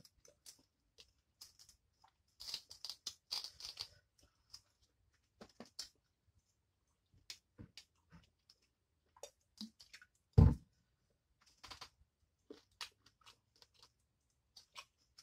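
Close-miked eating of boiled shrimp: scattered crackles of shell and wet mouth clicks while chewing, with a denser run of crackling a few seconds in. One loud, low thump about ten seconds in.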